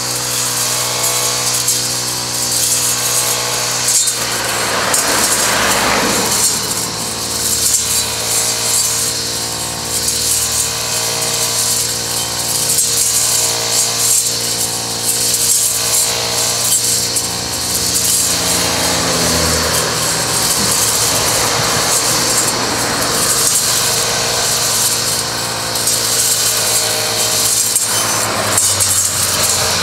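Brushcutter with an Ergo-Schnitt grass-cutting blade, its small engine running steadily at high revs as the blade cuts through long grass.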